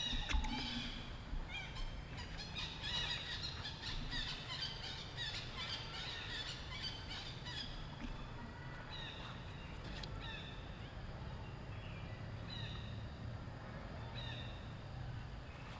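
Many short, high-pitched animal calls and chirps, crowded together for the first several seconds, then coming singly every second or so.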